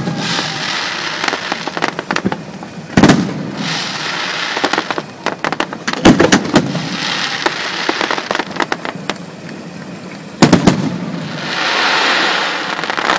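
Aerial firework shells bursting: three loud bangs about three to four seconds apart, each followed by crackling and a hiss of sparks, with a swelling hiss near the end.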